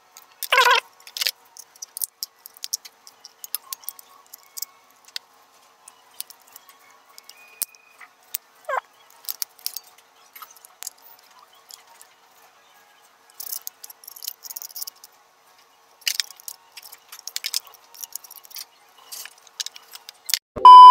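Hard plastic parts of a phone-holder grip and mount being handled and fitted together: sparse light clicks and taps. Near the end a loud electronic beep cuts in.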